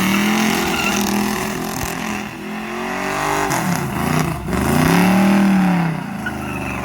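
Buick Regal engine revving hard during a burnout. Its pitch falls and climbs again a few times, then makes one long rise and fall about five seconds in.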